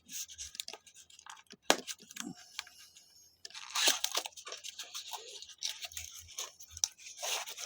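Packaging wrapped around a new folding knife being torn open and crinkled by hand, an irregular rustling and crackling with many small clicks.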